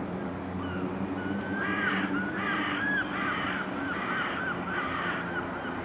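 A large bird calling five times in an even series, the calls about two-thirds of a second apart and starting about a second and a half in, over a low steady hum.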